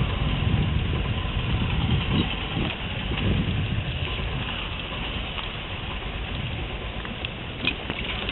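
Traffic noise heard from a vehicle moving along a rough, wet road: a steady low rumble of engines and tyres with a hiss over it, heaviest in the first few seconds and easing after.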